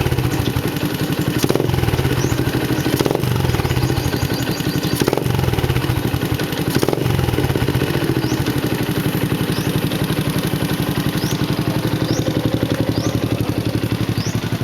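Yamaha 135 LC underbone's single-cylinder four-stroke engine running through a Nob1 Tri-Oval AL aftermarket racing muffler, blipped sharply several times in the first half, then running steadily.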